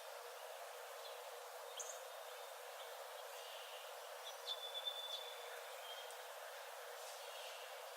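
Faint forest birds calling: a few short high chirps, and a thin whistled note held for about a second a little past halfway, over a steady soft hiss.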